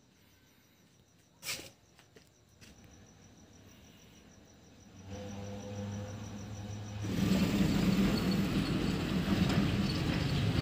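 An engine's steady hum comes in about five seconds in and turns louder and rougher about two seconds later. Under the quiet first half, crickets chirp faintly, and there is a single sharp click about one and a half seconds in.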